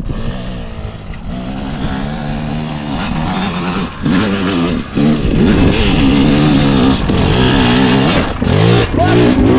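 Dirt bike engine running under throttle, its pitch rising and falling, with brief dips about a second in and again near four and five seconds.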